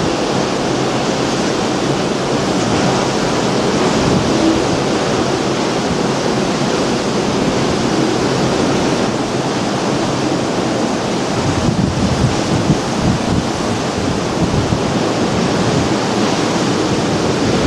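Steady rush of storm wind and rough sea, with white water churning along a cruise ship's hull below. From about two-thirds of the way through, gusts buffet the microphone with a low rumble.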